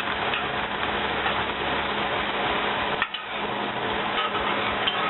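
Shredded cauliflower and vegetables sizzling in a hot cast iron skillet, with a metal spatula stirring and scraping the pan and a few light clicks of the utensil on the iron.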